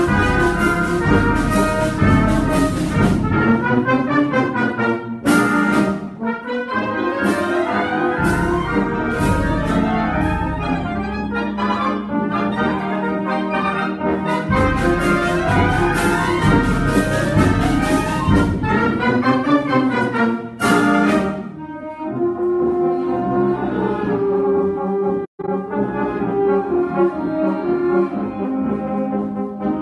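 Small wind ensemble, brass to the fore with horns, euphoniums, trombones and trumpets, playing a march. Loud, sharply accented playing gives way about two-thirds through to a softer, smoother passage, broken near the end by a split-second dropout in the sound.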